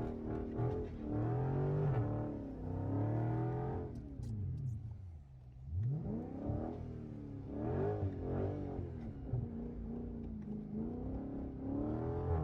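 Car engine revving up and down again and again while the car does donuts in snow, easing off briefly about five seconds in before climbing again.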